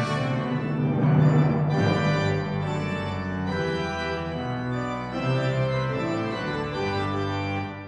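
Organ music: loud, full chords held and moving slowly from one to the next, falling quieter right at the end.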